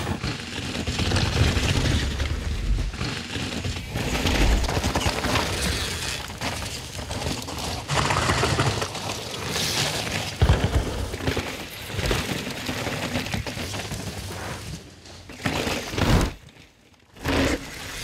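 Mountain bike ridden flat-out down a dirt trail: tyres crunching and skidding over dirt, roots and stones, with the bike rattling and clattering over bumps. The sound drops almost to nothing for about a second near the end, then the crunching resumes.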